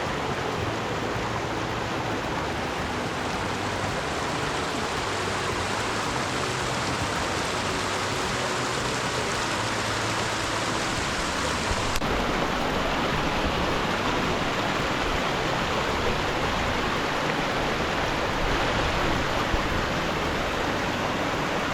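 Mountain creek rushing steadily over rocks, with a slight change in tone about halfway through.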